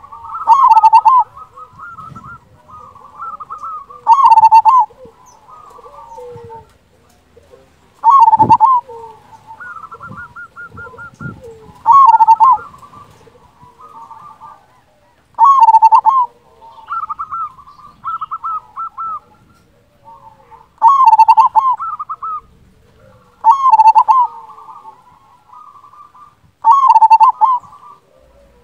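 Local zebra dove (perkutut) singing its cooing song. Each phrase opens with a fast run of soft, trilled notes and ends in a loud, full coo. The phrase comes eight times, every three to five seconds.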